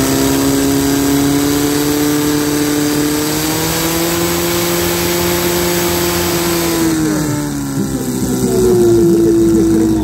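Portable fire pump's petrol engine running hard at high revs, its pitch rising slightly a few seconds in, then dropping about seven seconds in as it is throttled back, with a high hiss cutting out at the same moment. Voices rise over it near the end.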